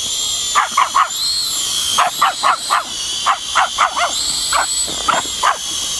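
Pomeranian puppy barking about a dozen times in short barks, in quick runs of three or four, over the steady high whine of a small toy quadcopter drone's motors, which wavers slightly in pitch.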